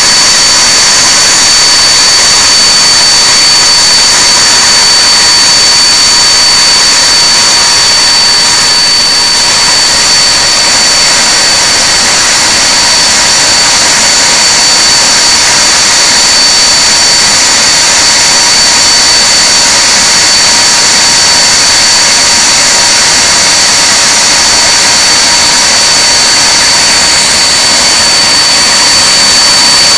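Handley Page Victor K2's Rolls-Royce Conway turbofan engines running on a ground run: a loud, steady jet noise with a high-pitched whine held on one note.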